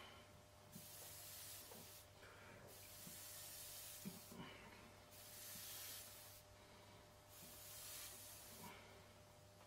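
Airbrush spraying paint in four short, faint hissing bursts, each about a second long, as the trigger is pressed and released.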